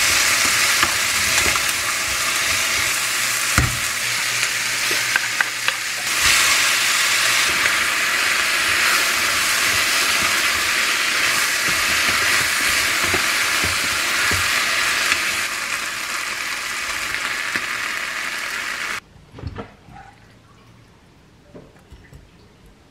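Vegetables and then spicy octopus sizzling loudly in a frying pan as they are stirred and tossed with a wooden spatula, with occasional knocks of the spatula against the pan. The sizzling cuts off suddenly about 19 seconds in, leaving only a few faint clinks.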